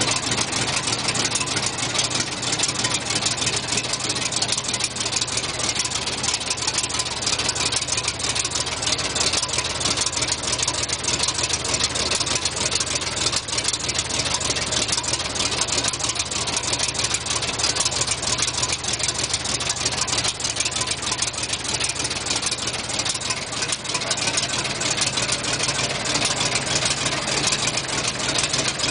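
Six-cylinder Buda gasoline engine of a Plymouth JLB industrial locomotive idling steadily, with a fast, even ticking over a constant low hum.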